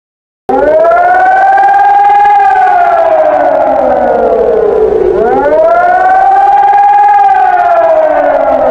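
Emergency warning siren wailing, starting abruptly about half a second in. Its pitch rises quickly, holds, then slides slowly down, rising again about five seconds in.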